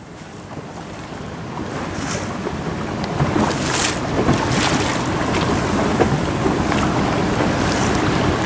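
A small boat under way at sea: wind buffeting the microphone over the rush of water along the hull, growing louder over the first three seconds and then holding steady.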